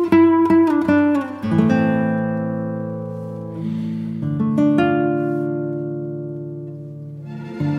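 Background music on a plucked string instrument: a run of quick picked notes, then two long chords left ringing and slowly fading, with the quick picking coming back near the end.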